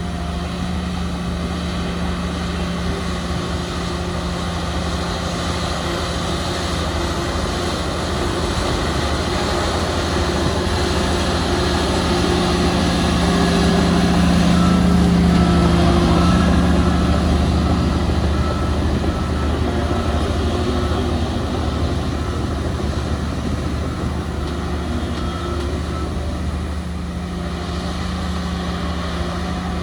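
Heavy diesel earthmoving machinery running with a steady drone, swelling louder around the middle and easing back toward the end.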